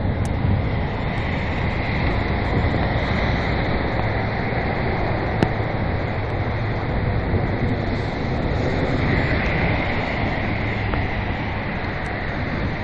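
Steady heavy rain with wind rushing over a phone's microphone, and the hiss of car tyres on the wet road. Two sharp taps, one right at the start and one about five seconds later.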